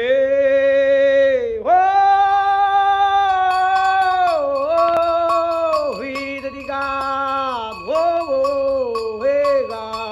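A man singing a slow melody in long held notes that glide from one pitch to the next, with a light, steady percussion beat coming in about three seconds in.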